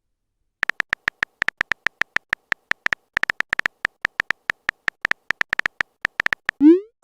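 Phone keyboard typing sound effect: rapid, irregular clicks of taps on an on-screen keyboard, starting about half a second in and running in quick runs with short pauses.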